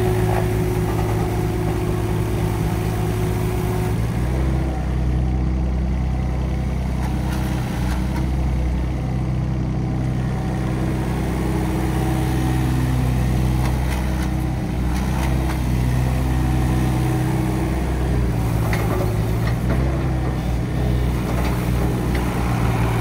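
2021 Takeuchi TB216 mini excavator's diesel engine running steadily while the machine is driven and works its arm and blade; the engine note shifts a few times as it goes.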